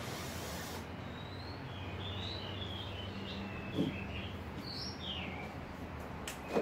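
Small birds chirping over and over, short gliding chirps, over a steady low hum. There is a knock about four seconds in and another near the end.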